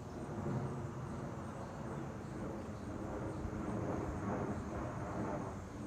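Jet airliner passing overhead on its descent, a steady jet noise with slight swells.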